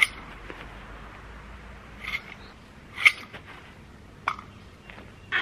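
Detached recoil starter from a 1950s David Bradley chainsaw, its pull cord yanked out and snapped back by the rewind spring: several short zips about a second apart.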